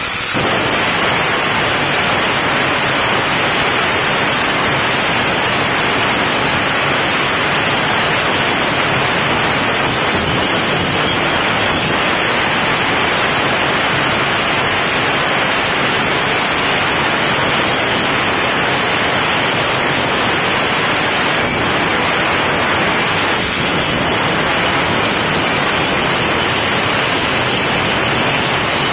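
Makita M0900B angle grinder running at full speed with its disc grinding down a protruding weld on steel plate: a steady, loud hiss of abrasive on metal over the motor's high whine. The speed holds steady as the disc is pressed into the work, with no bogging down.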